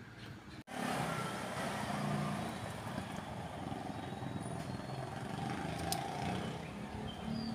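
Steady outdoor rumble of traffic that starts with a sudden cut about a second in, with a few faint sharp clicks of small pruning scissors snipping leaves off a bonsai shrub.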